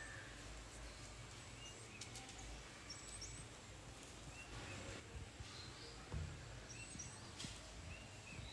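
Faint background ambience with a few short, high bird chirps scattered through it.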